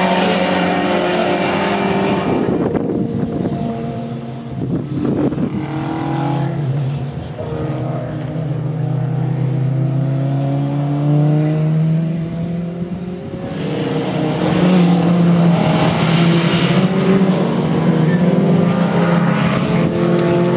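Racing saloon and sports car engines running hard on the circuit, several cars at once, their engine notes rising and falling through acceleration and gear changes. The sound is loudest for the first two seconds, drops back while the cars are farther off, and swells again from about two-thirds of the way through.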